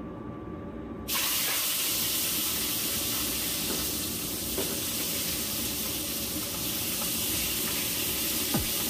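Steady hiss from a hot wok on a lit gas burner as a whole fish is put in to fry. It starts abruptly about a second in and runs on evenly.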